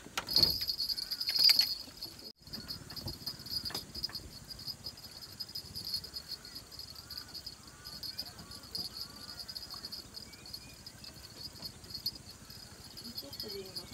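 Insects shrilling in a steady, high-pitched, pulsing chorus. There are a few loud knocks and rustles in the first two seconds and faint short chirps in the middle.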